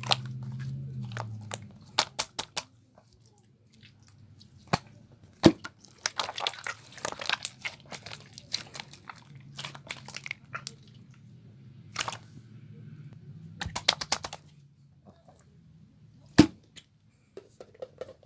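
Clear slime being pressed and stretched by hand, giving irregular sharp pops and clicks as its trapped air bubbles burst, some in quick clusters and a few single loud pops.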